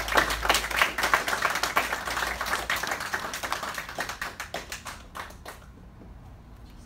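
Applause from a small group of people clapping their hands, thinning out and stopping about five and a half seconds in.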